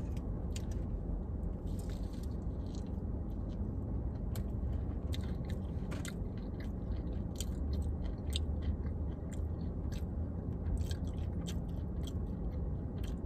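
Close-up chewing of a crispy, breaded Popeyes fried chicken sandwich: many small crunching clicks throughout, over a low steady hum.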